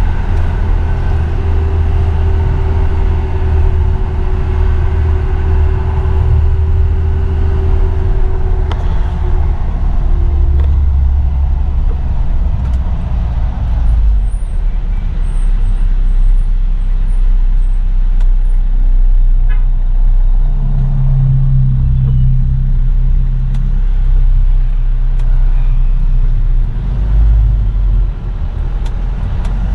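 Isuzu Elf NKR 55 microbus diesel engine running while driving, heard from inside the cab as a steady low drone. A steady higher tone rides over it for the first nine seconds or so. The engine's pitch shifts about two-thirds of the way through.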